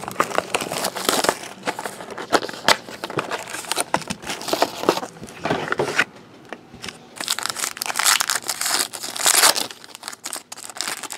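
Plastic wrapping of a sealed trading card box being torn open and crinkled, in irregular crackling handfuls with a short lull about six seconds in.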